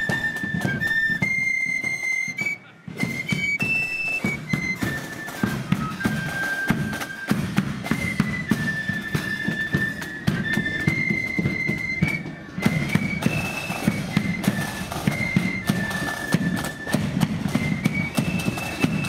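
Marching flute band playing a tune: massed flutes carry a stepping melody over drums and cymbals beating time. The music breaks off briefly twice, about three and twelve seconds in.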